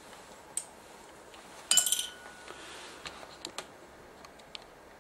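Light clicks and one short metallic clink with a brief ringing note about two seconds in, followed by a few faint ticks: small parts and tools being handled and set down during camcorder disassembly.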